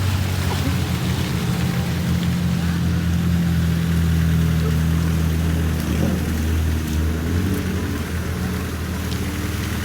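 Off-road vehicle's engine running steadily at low revs.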